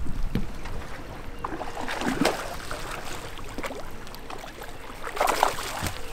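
A hooked largemouth bass splashing at the surface as it is fought to the boat: two splashes, the bigger one about five seconds in, over water lapping against the hull.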